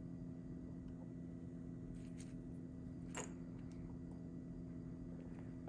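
A few faint clicks of small fidget-toy parts being handled and fitted together, the clearest about three seconds in, over a steady background hum.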